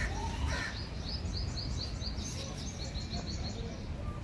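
Birds calling: a crow caws once near the start, then a small bird gives a quick run of high, rising chirps, about four a second, for a couple of seconds, over a low steady outdoor background noise.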